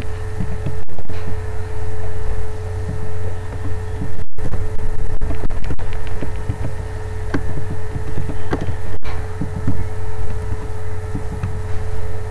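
A steady low hum with a constant higher tone above it, broken by a few sudden brief dropouts, with faint scattered clicks.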